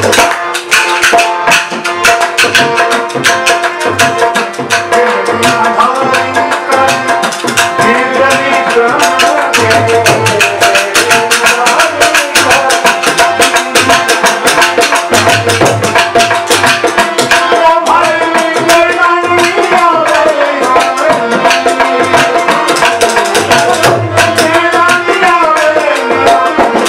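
Rajasthani Manganiyar folk music: a harmonium holding steady notes under a melody, a dholak drum keeping a fast beat with deep strokes, and khartal wooden clappers clacking rapidly.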